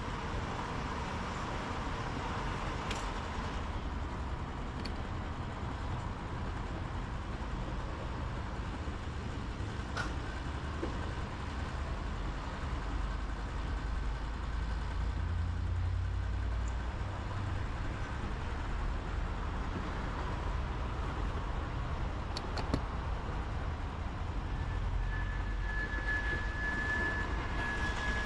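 Steady low rumble of a petrol-station forecourt, with a thin steady whine in the last few seconds as the fuel pump dispenses petrol into the ATV's tank.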